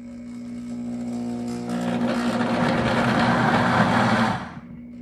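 Pampered Chef Deluxe Cooking Blender running on its soup program, its motor and blades chopping raw broccoli and vegetables. The sound builds louder and rougher, then drops sharply to a lower, steadier run about four and a half seconds in.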